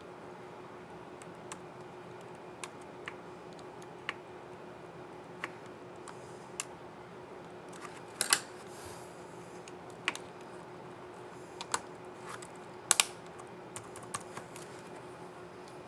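Laptop keycap clicking down on its scissor mechanism as it is pressed, about a dozen irregular sharp clicks, the loudest about eight seconds in and a close pair near thirteen seconds, over a faint steady hum.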